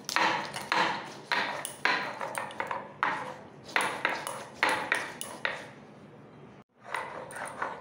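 A stone roller worked back and forth on a wet sil-batta (flat grinding stone), crushing whole spices into a paste. It makes a rhythmic rasping scrape, about two strokes a second, with a brief pause a little before the end.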